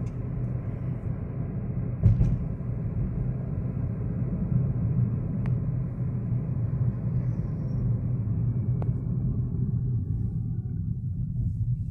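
Steady low rumble of a car driving on a paved road, heard from inside the cabin, with a single knock about two seconds in.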